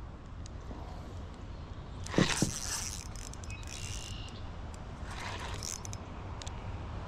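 Fishing reel being cranked with a ratcheting, clicking sound while a fish is reeled in, over a steady low hum. A sharp knock about two seconds in is the loudest sound.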